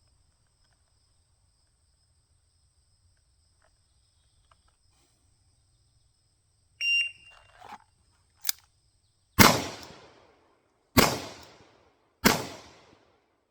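A shot timer's start beep, then a single action revolver fired three times, the shots about a second and a half apart, each report ringing away.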